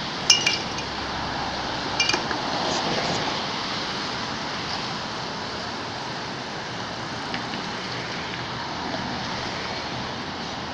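Steady rushing background noise, like distant road traffic, with two brief high-pitched chirps: one just after the start and one about two seconds in.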